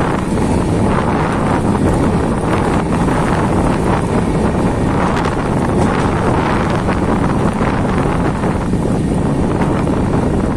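Wind blowing hard across the microphone over the steady running noise of a moving passenger train's wheels on the track, heard from a coach door or window.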